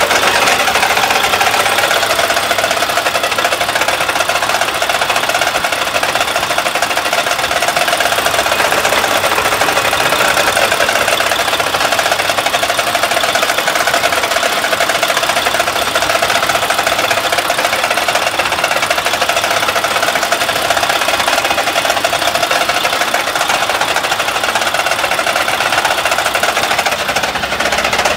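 Mack MP8 inline-six diesel engine running with a loud, steady, rapid knocking clatter. The truck also will not build air pressure, and a mechanic has taken the noise for a failed engine.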